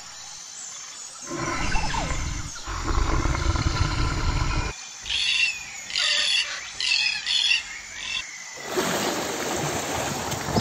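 Low, noisy rumbling from a herd of elephants. Then four short, harsh calls from a red-tailed black cockatoo, a little under a second apart. Near the end comes a steady wash of surf by a group of seals.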